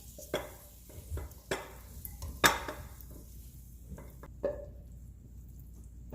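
Serving utensil knocking and scraping against a pan and bowls as pasta is dished out: a handful of separate clinks, the loudest about two and a half seconds in, stopping after about four and a half seconds.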